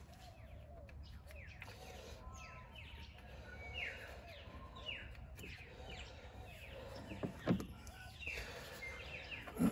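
Birds chirping again and again with short falling chirps over a low background rumble. About seven and a half seconds in, a single sharp click as a bulb is pushed into a plastic tail-light bulb holder.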